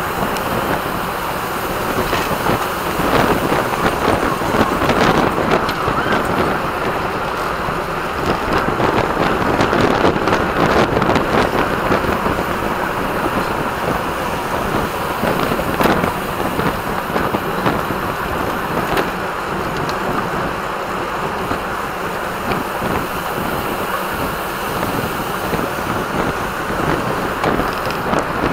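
Steady wind rush over the microphone of a camera riding along on a road bike at race speed, with road and tyre noise and scattered small clicks and knocks.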